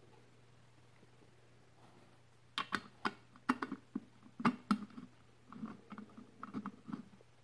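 Metal clicks and taps of a 3/16 hex socket on a hand driver seating on and turning the centre bolt of a motorcycle's round air cleaner cover. A few sharp clicks start a couple of seconds in, followed by quicker, softer clicking near the end.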